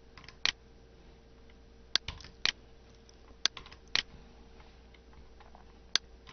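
Computer mouse clicks, in pairs about half a second apart: at the start, around two seconds in, around three and a half seconds in, and near the end. A faint steady hum lies underneath.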